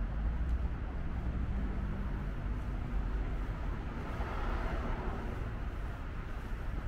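City street traffic: a steady low rumble of passing vehicles, swelling as one goes by about four seconds in.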